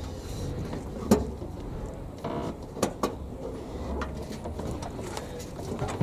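Hotpoint washing machine's kick strip being worked off its base: a sharp knock about a second in, a short scrape, then two more clicks close together about three seconds in, over a low rumble.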